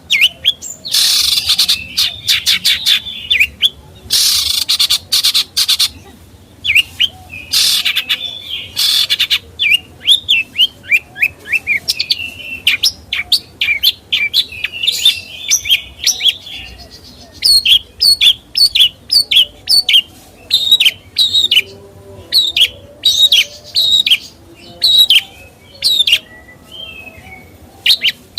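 A songbird singing loudly. Harsh, scratchy bursts of song come in the first nine seconds, then a long, fast run of short chirps that each sweep downward.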